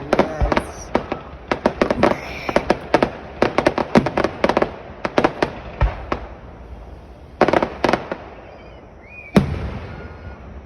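Fireworks display: rapid crackling from many small bursts for about five seconds, then sparser clusters of crackles, and one sharp, loud bang near the end.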